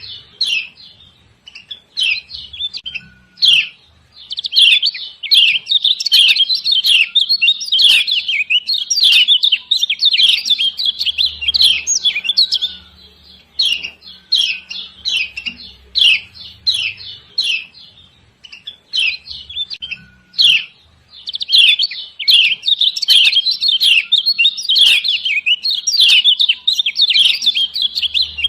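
Kecial kuning, a yellow white-eye from Lombok, giving the female's rapid, harsh 'ciak ciak' chirps in long dense runs, broken by a few seconds of scattered single chirps in the middle.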